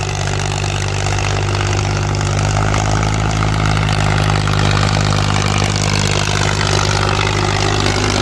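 Powertrac 445 tractor's 45 HP diesel engine running steadily under load, pulling an 18-disc harrow set fully into the soil.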